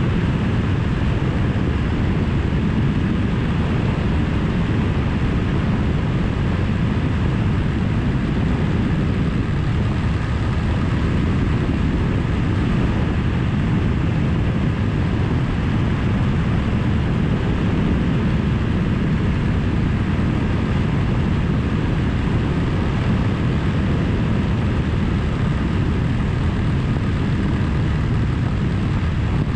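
Suzuki V-Strom 1000 V-twin motorcycle cruising at a steady speed on the open road, its engine and rushing wind noise running unchanged.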